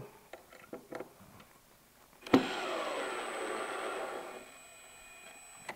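Cordless drill-driver whirring as it drives a pan-head pocket screw through a small wooden clip into the plywood back panel, starting suddenly about two seconds in, its pitch sinking slowly as it fades out. Faint handling ticks before it.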